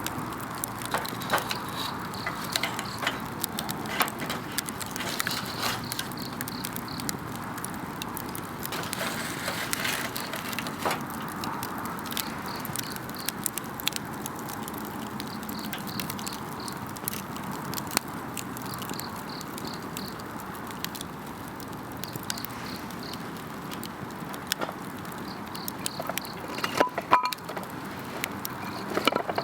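Wood campfire crackling with frequent sharp pops, over insects chirping in repeated pulsed runs. A few louder pops come close together near the end.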